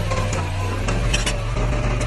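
Diesel engine of heavy earthmoving machinery running steadily, with short high metallic squeaks and clinks over it.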